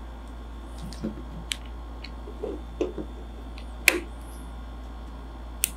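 Scattered small clicks and ticks as a precision screwdriver with a Torx bit works the screws of a black knife sheath, the sharpest tick near four seconds in, over a steady low hum.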